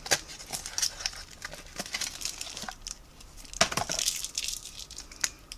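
Unwrapping and handling a boxed perfume: plastic wrap and cardboard packaging rustling, with scattered light clicks and taps as the glass bottle is lifted out. The sharpest click comes about three and a half seconds in.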